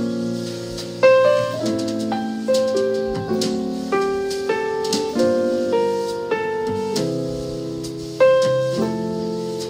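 Background piano music, a slow melody of sustained notes struck about every half second.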